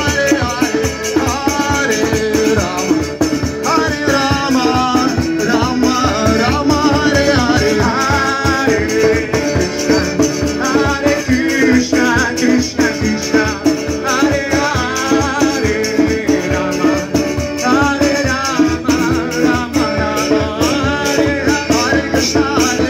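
Live devotional kirtan: a man singing a chanted melody to an accordion's sustained chords, with rattling hand percussion keeping a fast, steady beat.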